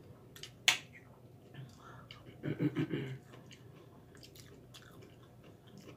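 Close mouth sounds of a person eating: chewing with scattered sharp clicks, a louder click under a second in, and a brief low murmur about halfway through.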